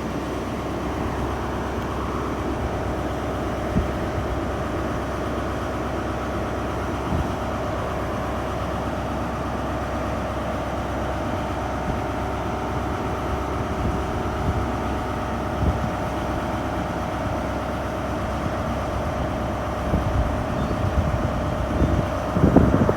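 Class 150 diesel multiple unit idling at the platform, a steady engine hum with a few small knocks now and then.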